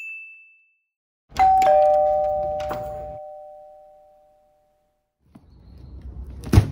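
Two-tone doorbell chime: a higher note then a lower one (ding-dong), ringing out for about three seconds. A short bright ding comes at the very start, and a single thump near the end.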